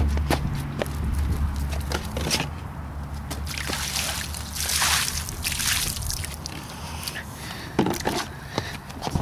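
A load of water splashing down onto a concrete curb and a Fitbit band lying on it, loudest about four to six seconds in, then trickling and dripping. There are scattered light knocks throughout.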